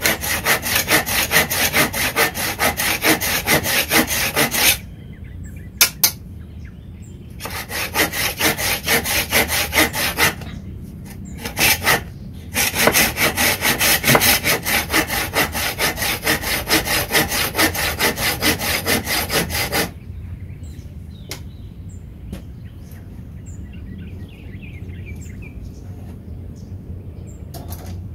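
Wipro folding saw cutting a wooden board by hand with rapid back-and-forth strokes. The sawing comes in three spells broken by short pauses and stops about twenty seconds in, leaving only faint ticks.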